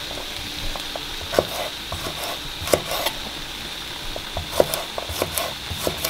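A chef's knife chopping green beans on a wooden cutting board, sharp irregular knocks a few per second, over a steady sizzle of tomatoes and onion roasting in a skillet.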